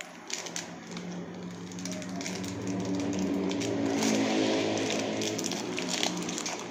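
Small plastic gummy-candy wrapper crinkling and crackling as fingers pick and tear it open, over the hum of a passing motor vehicle engine that swells to its loudest about halfway through and then eases off.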